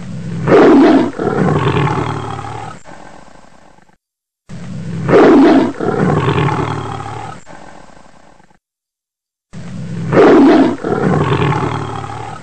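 Tiger roaring three times, the same roar repeated every four to five seconds with silence between. Each roar opens with a loud burst and trails off over about three seconds.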